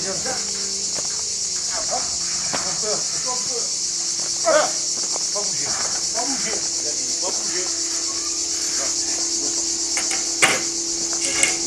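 A steady, high-pitched chorus of insects shrilling, with two sharp knocks near the end about a second apart.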